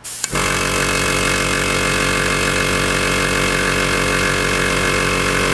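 Sparmax ARISM AC66HX oil-less piston airbrush compressor switching on abruptly about a quarter second in, then running steadily with an even pulsing. It settles at about 13–14 psi on its gauge.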